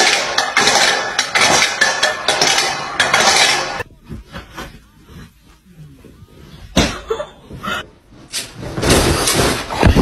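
Metal dog bowl scraping and clattering over brick paving as a puppy shoves it, a dense run of sharp strokes that stops abruptly after nearly four seconds. A quiet stretch follows, broken by a sharp knock about seven seconds in, with more knocks and rustling near the end.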